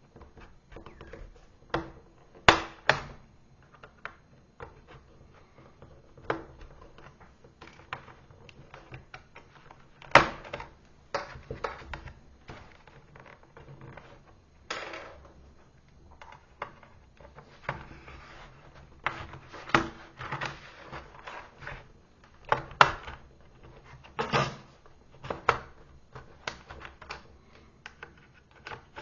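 Irregular clicks, taps and knocks of tools and hands working on a laptop's case during disassembly, a few of them sharp and louder than the rest.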